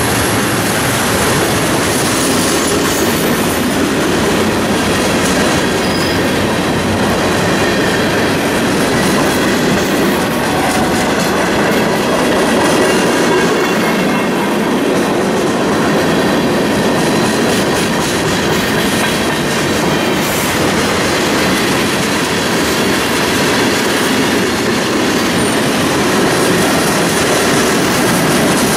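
Freight train cars (tank cars, flatcars and covered hoppers) rolling steadily past, steel wheels rumbling and clacking over the rail.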